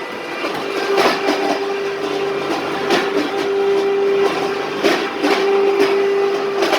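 Wafer biscuit grinding machine running: a steady motor hum with irregular clattering and knocks, a sharper knock about every second or two.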